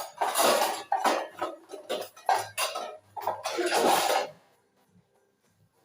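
Metal kitchen utensils and a pan being handled: a series of clattering, scraping knocks for about four seconds.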